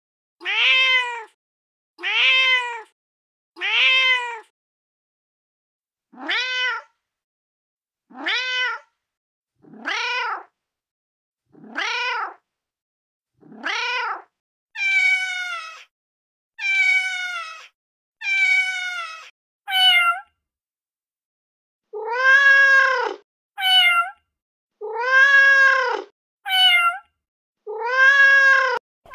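Domestic cat meows played back one after another from a cat-sounds app: about eighteen meows, each roughly a second long, with dead-silent gaps between. They come in sets of four or five from different cats, and the pitch and shape change with each set, with higher, falling meows in the middle and longer, lower arching ones near the end.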